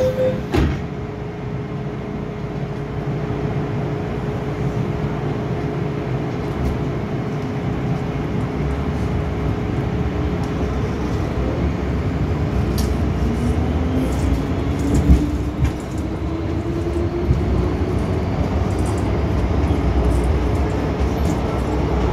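MTR M-Train heard from inside the car as the doors knock shut about half a second in and the train pulls away: steady running rumble, with a whine that rises in pitch as the train gathers speed. There is a sharp knock about two-thirds of the way through.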